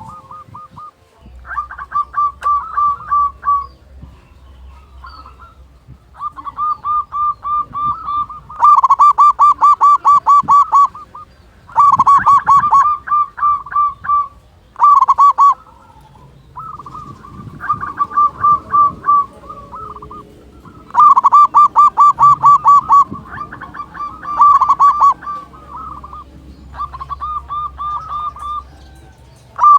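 Zebra dove (perkutut) cooing: repeated bouts of fast, evenly spaced cooing notes, each bout lasting one to three seconds, some bouts much louder than others.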